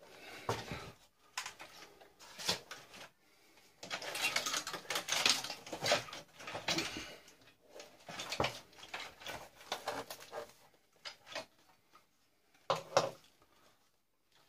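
Parts of an old tube television being dismantled by hand: irregular clicking, clattering and short scrapes of metal and plastic pieces, with a run of rapid clicks in the middle.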